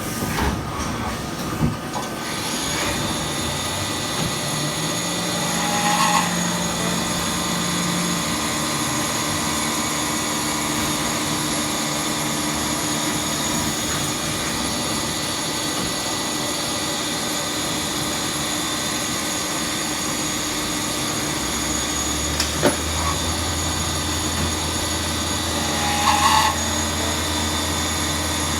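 Mazak QT100MSY CNC lathe running a turning cycle, with its sub spindle acting as a tailstock: a steady machine whine made of several constant tones. A few sharp clicks come near the start and another around two-thirds of the way in, with brief louder bursts about six seconds in and near the end. A low hum joins about three-quarters of the way through.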